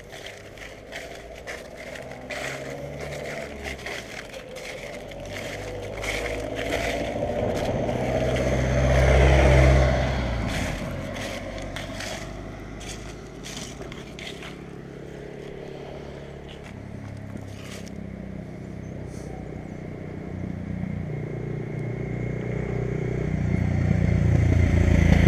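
Footsteps crunching through dry fallen leaves on a cobbled pavement, a crackle at every step, thinning out after about ten seconds. A car passes on the road alongside about nine seconds in, and another vehicle approaches, growing louder toward the end.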